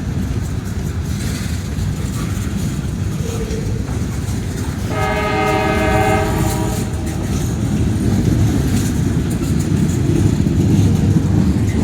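Loaded coal train running on the rails with a steady low rumble that grows slightly louder, and a train horn sounding once for about two seconds midway.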